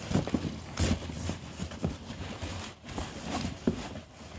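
Cardboard and packing paper rustling, with irregular knocks and thumps, as a boxed item is lifted out of a cardboard packing box.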